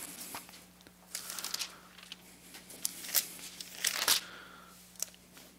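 Thin Bible pages being turned and rustled in several short, scattered bursts, over a faint steady hum.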